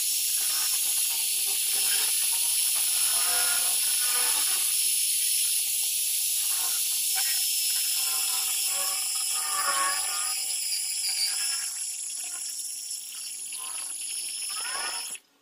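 Small metal lathe running, with a twist drill in the tailstock chuck boring into the end of the spinning metal workpiece: a steady motor hiss and high whine with wavering cutting tones. It cuts off suddenly near the end.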